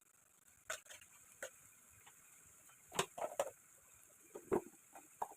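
A dozen or so irregular light clicks and taps, loudest in a small cluster about three seconds in.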